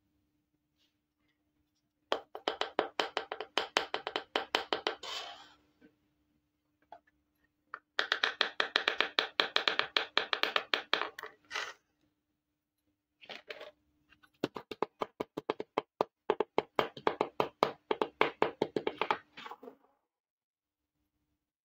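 Small plastic toy kitchen pieces being tapped and clicked rapidly by hand, in three runs of several seconds each, many light clicks a second.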